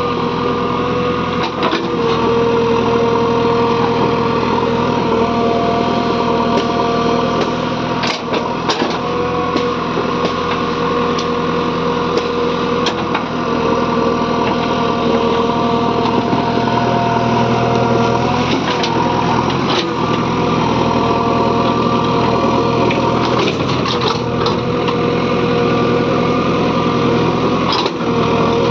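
JCB 3DX backhoe loader's diesel engine running steadily under work, with occasional sharp knocks over it.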